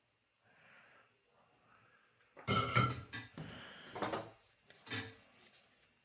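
Soldering iron and solder wire being put down on a workbench: a few short clattering knocks and rattles, the loudest about two and a half seconds in.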